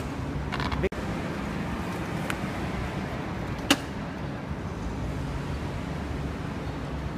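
Steady low background rumble, with a brief dropout about a second in and a sharp click a little past halfway.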